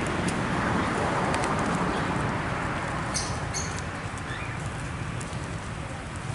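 Outdoor ambience of steady noise, with a few short high bird chirps about three seconds in.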